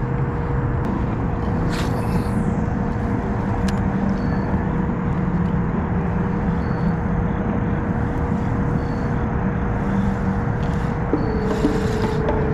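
Electric trolling motor running steadily as the kayak moves across the water, a constant whine over a rushing wash of water and wind; the whine steps up slightly in pitch near the end.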